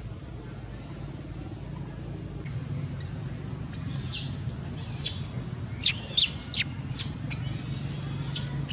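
Young long-tailed macaque crying: a string of short, high-pitched, falling squeals starting about three seconds in, with one longer cry near the end. A steady low hum runs underneath.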